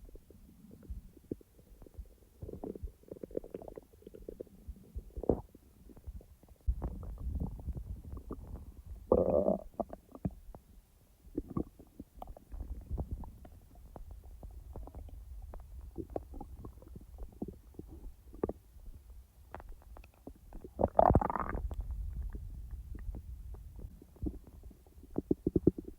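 Human stomach and intestines gurgling as they digest: many short gurgles and pops over a low rumble. Two louder, longer gurgles come about nine seconds in and again about twenty-one seconds in.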